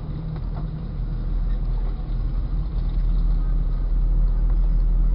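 Jeep Cherokee XJ's engine and drivetrain running at low speed on a dirt trail, heard from inside the cabin as a steady low drone that grows somewhat louder over the last couple of seconds.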